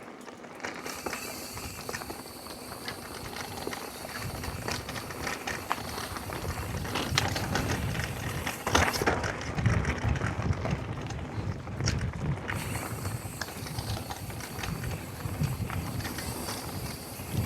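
Mountain bike being ridden fast down a dirt jump line: wind and tyre rumble with clattering knocks from the bike, the rumble growing stronger about four seconds in.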